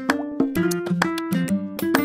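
Background music: a quick, bouncy melody of short, sharply struck notes, several to the second.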